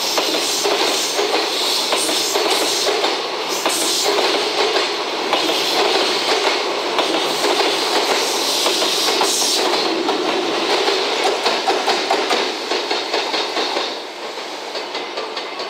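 Freight container wagons rolling past close by, their wheels clattering in a steady rhythm over the rail joints. About fourteen seconds in, the rear banking electric locomotive, EF210-319, goes by and the noise drops away as the train's tail passes.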